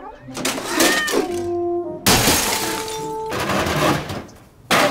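Two sudden loud crashes, one about two seconds in and one near the end, with music-like tones between them. The crash near the end is a boxy old computer monitor, dropped from an upstairs window, hitting a concrete driveway.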